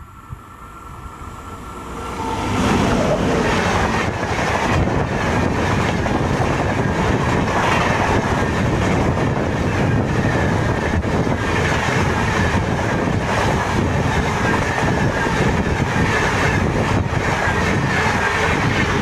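High-speed Jan Shatabdi Express behind a WAP-7 electric locomotive, passing close on the next track. It grows suddenly loud about two to three seconds in as the locomotive arrives, then runs on as a steady loud rush of air and rapid clickety-clack of wheels as the coaches go by.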